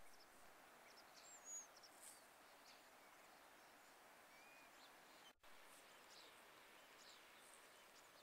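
Near silence: faint outdoor ambience with a few faint, short, high bird chirps. The sound briefly cuts out about five seconds in.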